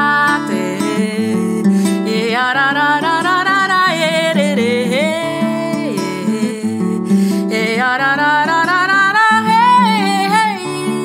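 A woman singing a long, wavering melodic line over acoustic guitar, with two sung phrases across the stretch.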